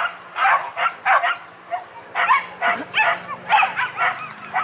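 Leashed boar-hunting dogs barking over and over in short, quick barks, several dogs at once.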